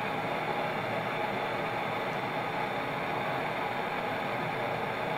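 Two handheld gas torches firing into a small ceramic kiln, their flames making a steady, even hiss as the crucible inside heats to cherry red.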